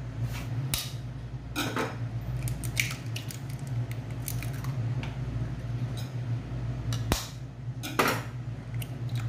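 Eggs being tapped and cracked open by hand and dropped into a mixer jar: a scatter of sharp taps and knocks, the sharpest about seven and eight seconds in, over a steady low hum.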